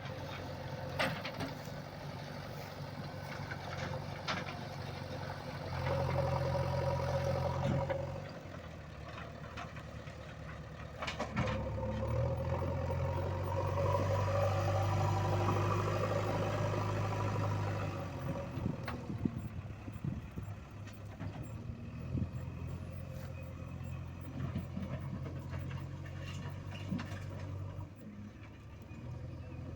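JCB 3DX backhoe loader's four-cylinder diesel engine running, rising under load twice, once briefly and once for several seconds, then settling back. A few sharp knocks sound over it.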